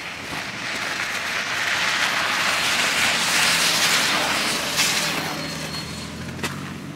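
A vehicle passing close by, its noise swelling over a few seconds and fading, followed from about five seconds in by a low steady engine hum.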